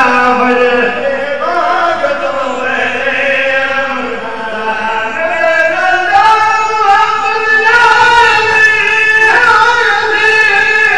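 Men singing a devotional qasida into microphones, in long drawn-out notes that glide up and down.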